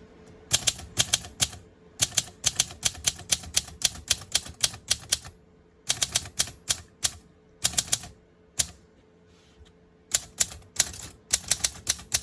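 Typing on a 1959 Olympia SM3 manual typewriter with an Arabic-script keyboard: keys striking in quick runs of sharp clacks, broken by short pauses.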